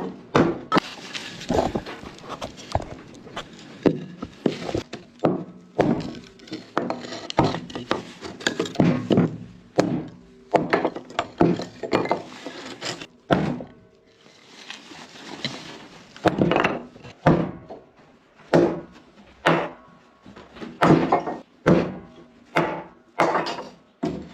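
Wood being knocked and handled: a long series of irregular wooden thuds and knocks, with a brief quieter spell of rustling about two-thirds of the way through.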